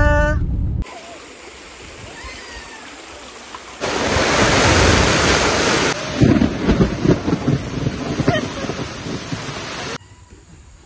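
Rushing river water, heard in several short clips cut one after another, loudest about four to six seconds in. Wind buffets the microphone in the later part.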